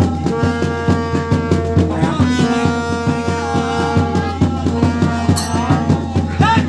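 Uttarakhandi folk ritual music for the deity's dance: a quick, steady drumbeat of about six strokes a second under a wavering melody over a held drone.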